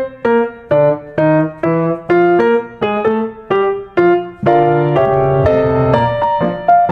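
Intro music on a piano-like keyboard: a melody of single struck notes, about two to three a second, that moves into held chords about two-thirds of the way through.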